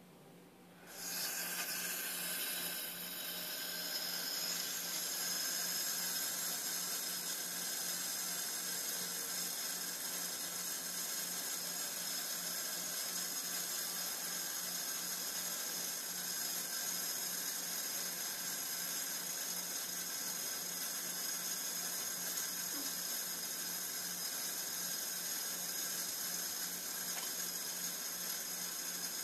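Sink tap turned on about a second in, then water running steadily into the basin.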